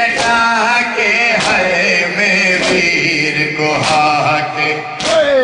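A man chanting a noha, a Shia lament, in long wavering sung lines, with a sharp beat about every 1.2 seconds; near the end the voice slides down in pitch.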